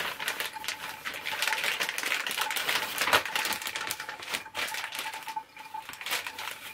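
Thin plastic piping bag rustling and crinkling in the hands, with irregular small clicks, as a piping nozzle is fitted into its cut tip.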